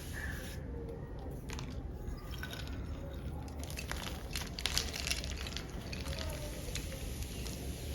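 Small pebbles of black-dyed gym chalk being crushed, giving an irregular run of dry crunches and crackles over a low steady hum.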